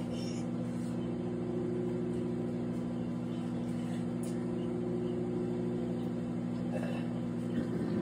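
Countertop microwave oven running mid-cycle, a steady low hum.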